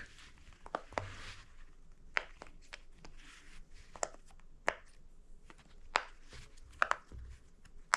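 Silicone bubbles of a glow-in-the-dark pop-it fidget toy being pressed in one by one, giving sharp irregular pops, roughly one a second, with fainter clicks between.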